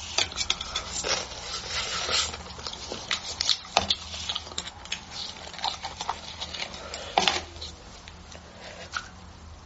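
Close-miked wet eating sounds of beef bone marrow being sucked and eaten: irregular lip smacks, sucking and clicking mouth noises. They are busiest in the first couple of seconds and thin out toward the end.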